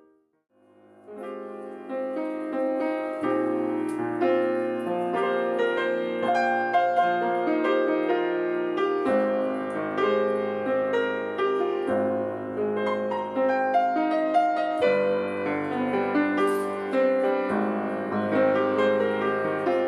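Yamaha C3 grand piano fitted with Renner hammers, freshly tuned and repaired, being played: a chordal passage over sustained bass notes. It starts about a second in after a brief pause.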